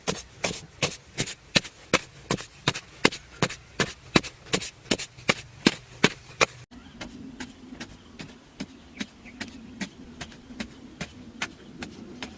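Sharp knocks in an even rhythm, about four a second; after a sudden cut about halfway through, fainter knocks go on over a low steady hum.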